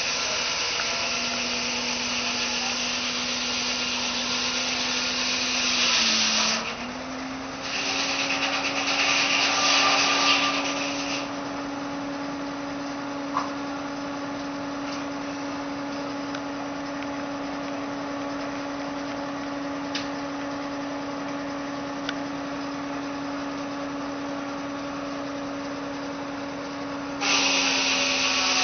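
Tractor-driven sawmill running with a steady hum throughout that dips briefly in pitch about six seconds in. A louder rasping noise runs through the first eleven seconds, drops away to the steady hum, and returns near the end.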